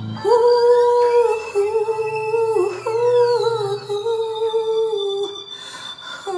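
A woman's voice singing long wordless held notes into a microphone, stepping between a few pitches, over a quiet backing track.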